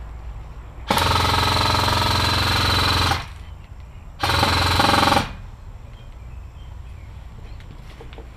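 Airsoft rifle firing full-auto in two bursts, a long one of about two seconds starting a second in and a shorter one of about a second, each a fast, even buzz of shots that starts and stops sharply.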